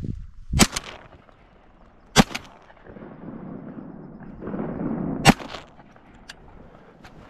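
Shotgun fired three times, sharp shots about one and a half and then three seconds apart.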